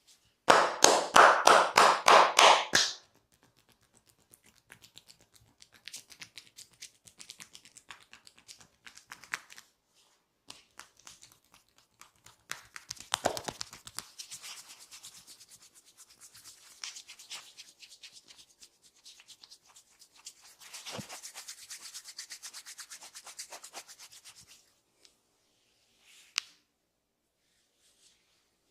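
Hands rubbing and scratching over skin and hair in a head massage. It opens with a loud run of quick strokes, about four a second, for a couple of seconds. Softer, uneven rubbing and scratching follows, with one short sharp sound near the end.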